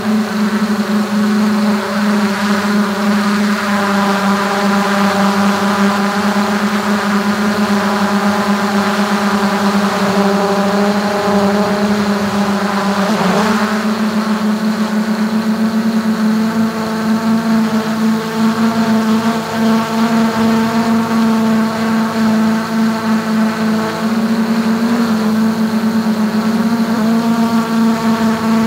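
DJI Mavic 2 quadcopter's motors and propellers humming steadily in flight, heard close up from the camera mounted on the drone's top. The pitch briefly dips and climbs about halfway through as the drone manoeuvres.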